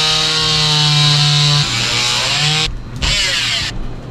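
Oscillating multi-tool running as its blade cuts off a PVC pipe stub flush with a fiberglass hardtop. It runs steadily for under two seconds, its note shifts, then it stops, restarts for a short burst about three seconds in, and stops again before the end.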